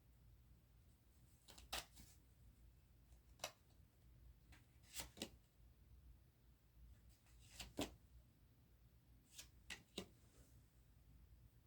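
Tarot cards being handled: a faint series of short card snaps and clicks, about nine in all, some coming in quick pairs, spread across a quiet room.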